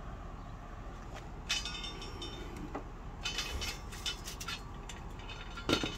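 Metal charcoal chimney starter full of briquettes being handled on a grill grate: scattered clinks and rattles of thin sheet steel and charcoal, in a couple of short clusters and one sharper knock near the end.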